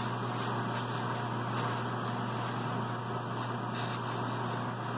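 Airbrush spraying alcohol-thinned paint at about 60 psi: a steady hiss of air, over a constant low hum.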